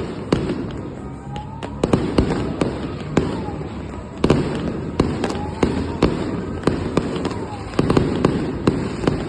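Fireworks display: a rapid, irregular barrage of bangs and crackles from bursting aerial shells, with denser clusters about four seconds in and again near the end.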